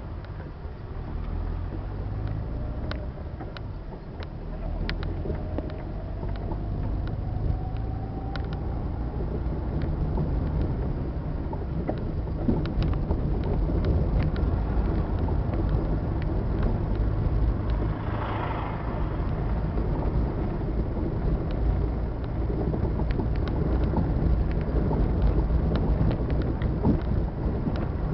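Car being driven, heard from inside the cabin: steady low engine and road rumble with small rattles, growing louder after about ten seconds. An engine note rises for a few seconds from about four seconds in, and a short hiss comes about two-thirds of the way through.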